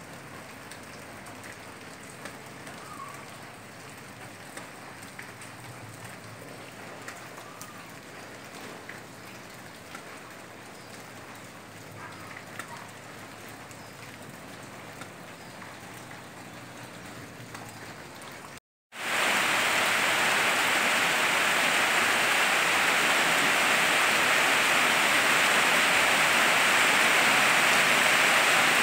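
Steady light rain with a few faint ticks of drops. About two-thirds of the way through, a cut brings in a much louder, steady downpour of heavy rain.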